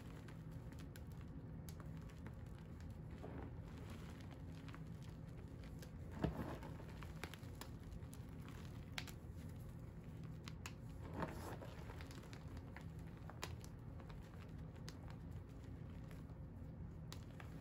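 Hands crumbling and squeezing pink-dyed, dried powdery blocks: faint dry crunching with scattered small crackles and two louder crunches, about six and eleven seconds in, over a steady low hum.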